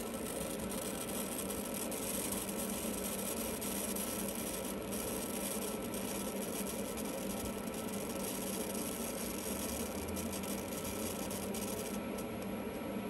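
Plasma flame of a high-frequency solid-state Tesla coil burning steadily with a glass rod held in it, a constant hiss with a steady hum beneath.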